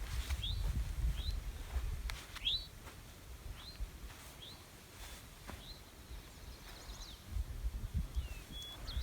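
A songbird repeating a short rising chirp about once a second, over a gusty low rumble that comes and goes in the first couple of seconds and again near the end.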